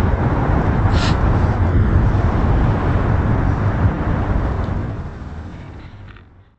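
Steady city street noise of road traffic, with a short tick about a second in. It fades out over the last two seconds.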